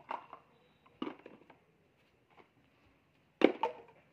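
Plastic toiletry bottles knocking against a plastic mug and the concrete as they are picked up and dropped into the mug: a few short, light clacks, the loudest near the end.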